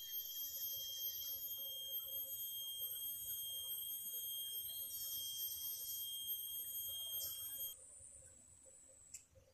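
Chorus of tropical forest insects: several steady, high-pitched whines, with a rasping swell that rises and fades twice. About three-quarters of the way through, the highest and lowest whines stop suddenly and it grows quieter.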